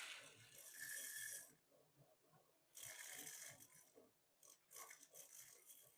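Loose desiccant beads poured into a small plastic desiccant box in three short pours, a faint rattling hiss.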